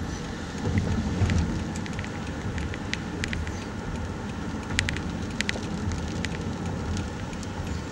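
Storm wind rushing and rumbling on the microphone near a tornado, with scattered sharp ticks.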